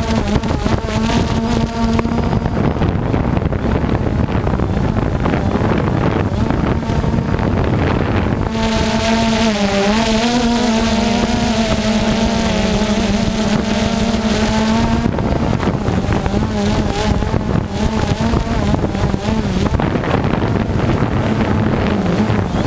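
Steady rushing roar of the Nametsu Ōtaki waterfall, with a low droning hum over it that grows stronger and wavers in pitch partway through.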